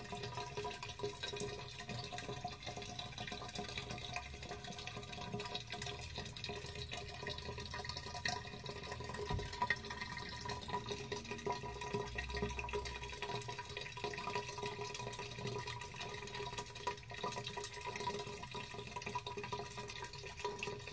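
Bathwater slowly draining out of a bathtub: a steady faint trickle and drip of water, with a steady hum underneath.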